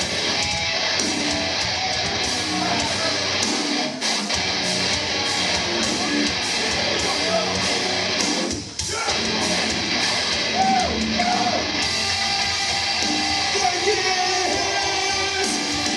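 Heavy metal band playing live: electric guitar and drums, with a brief drop in the music just before nine seconds in.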